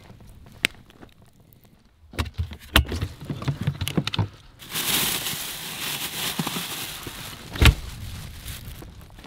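Groceries being handled in a portable truck fridge: clicks and knocks of things being moved, then plastic grocery bags rustling and crinkling for a few seconds, and one sharp thud near the end.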